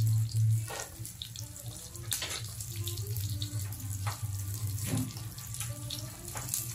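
Pork belly and eggplant sizzling in a grill pan, the fat crackling and popping irregularly over a fine hiss. A low hum runs underneath and is loudest in the first second.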